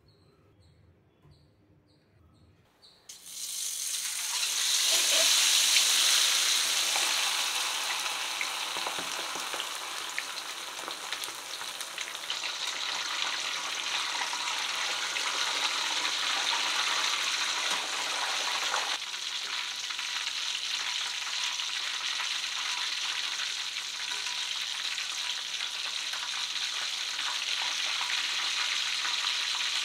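Whole marinated chicken deep-frying in hot oil: loud sizzling starts suddenly about three seconds in, after near silence, peaks shortly after and then settles to a steady sizzle.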